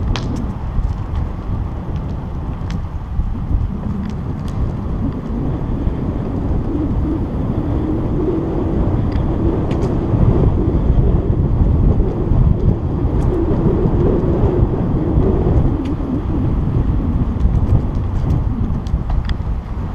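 Wind rumbling on a handheld camera's microphone as a bicycle rides at speed, a steady low buffeting with a few faint clicks.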